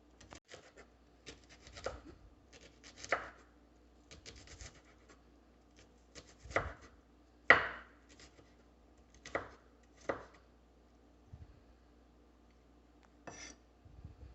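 Kitchen knife cutting an onion on a chopping board: separate, unevenly spaced strokes knocking on the board about once a second, a few louder than the rest.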